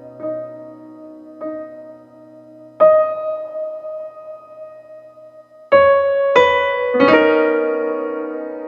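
Background piano music: single soft notes, a louder note about three seconds in, then a few chords struck close together near the end that ring on and fade.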